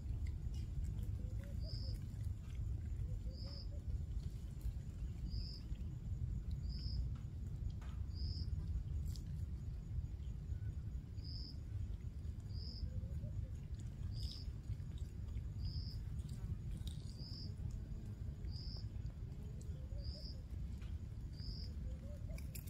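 A bird calling one short high note over and over, about once every second or so, over a steady low rumble of outdoor noise.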